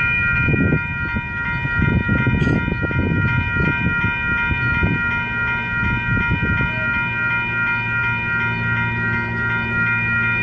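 Electronic railroad-crossing bells (WCH Type 2) ringing steadily at an activated grade crossing. Underneath is a low rumble that settles into a steady engine drone about halfway through.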